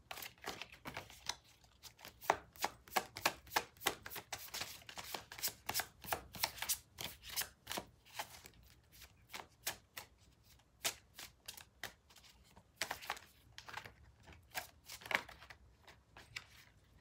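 Deck of tarot cards being overhand-shuffled by hand: a quick, irregular run of short card slaps and clicks, easing off briefly a couple of times.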